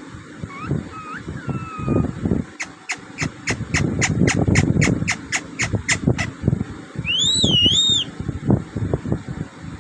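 Parrot calling: a few short gliding whistles, then a rapid run of sharp chirps at about four a second for some four seconds, then one wavering whistle that rises, dips and rises again near the end.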